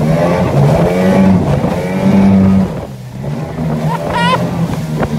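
Modified 9.8 hp two-stroke outboard, ported and fitted with an 18 hp carburettor and a different exhaust tuner, running hard at speed; it eases off briefly about three seconds in and then picks back up. A short, wavering yell of excitement comes near the end.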